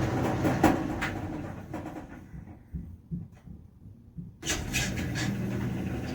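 Euhomy 850 W portable clothes dryer reversing its drum. It runs with a few knocks, winds down to near quiet, then starts up again suddenly about four and a half seconds in as the drum turns the other way. It does this constantly, a noise the owner dislikes.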